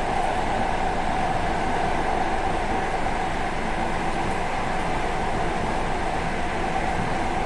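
ED4M electric train running steadily along the track: an even rumble of wheels on rail with a steady whine over it.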